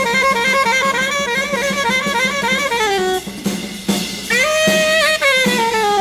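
Jazz saxophone with a drum kit and cymbals: the saxophone plays a quick run of notes that slides down and stops about halfway through, the drums carry on alone for a moment, then the saxophone comes back with a long held note that falls away.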